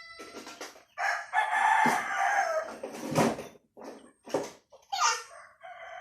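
Six-month-old stag (young gamecock) crowing, a young bird still learning its crow: one long crow about a second in that falls away at its end, and another starting near the end. Short sharp sounds come in between.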